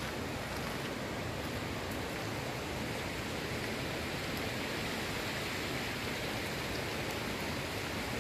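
Steady rushing of a shallow river flowing over stones and gravel.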